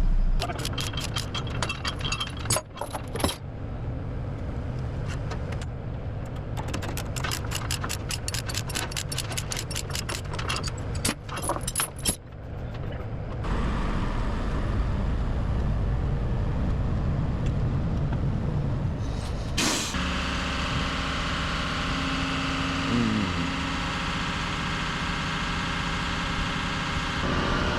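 Heavy diesel equipment being unloaded. A rapid rattle of sharp metallic clicks runs for about the first dozen seconds. About twenty seconds in comes a short burst like an air-brake hiss, and then a diesel engine runs steadily with a few brief whines.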